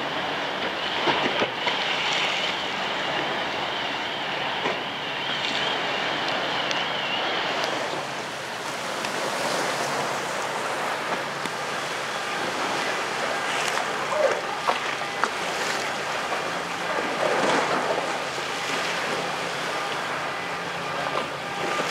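Waves and ferry wash splashing, with the low running of a passing car ferry and wind on the microphone. A wavering high whine sounds for the first seven or so seconds, then stops.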